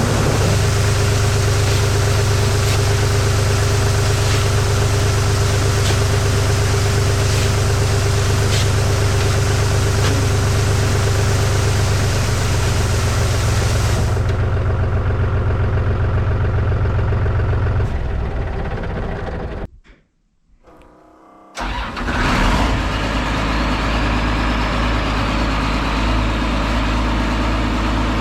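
Engine-driven farm machinery running steadily with a deep hum, dropping out abruptly about twenty seconds in; then an engine starts and settles into a steady idle.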